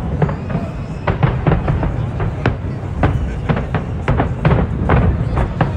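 Fireworks display: a rapid string of sharp bangs and crackles over a constant low rumble, with music playing alongside.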